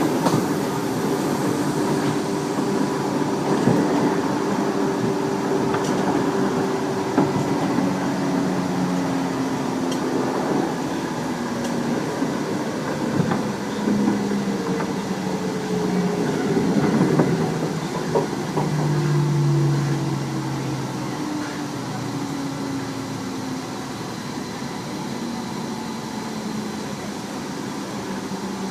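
Tobu 30000-series electric train heard from on board while running: the traction motor and inverter hum moves through several steady tones that step down in pitch, over wheel-and-rail running noise with occasional rail-joint clicks. About two-thirds of the way in the hum fades and the running gets quieter. The uploader believes this set has permanent-magnet synchronous motors (PMSM).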